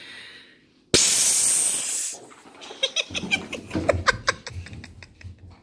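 A loud, cat-like hiss made by a person, lasting about a second, the household's sound that tells the dogs the cat has come downstairs. Then Cane Corsos scramble off the couch and run across a tile floor in a flurry of clicking claws and thumps.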